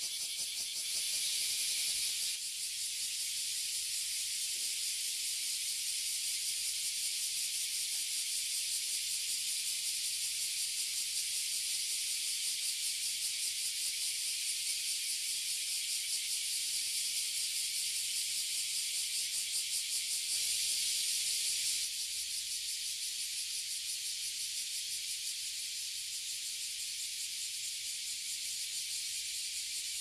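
Chorus of cicadas, bear cicadas (kuma-zemi) and large brown cicadas (abura-zemi), calling together from a tree as one steady, high-pitched sizzling drone with a fast pulse in it. It swells louder briefly about a second in and again about twenty seconds in.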